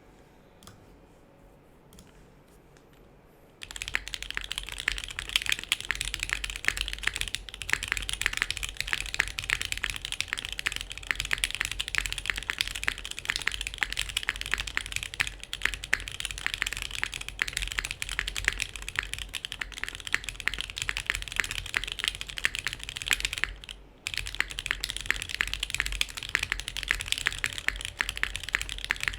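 Custom mechanical keyboard (SingaKBD Kohaku with lubed Alpaca linear switches, polycarbonate plate and GMK keycaps) being typed on fast and continuously. A few faint clicks come first, then dense typing starts a few seconds in, with a short pause about four-fifths of the way through.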